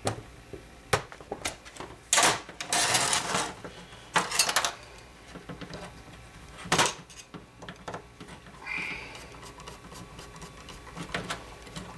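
Tools and small metal parts clicking and clattering against an outboard carburetor body on a metal workbench as it is taken apart, with a few short hissing bursts.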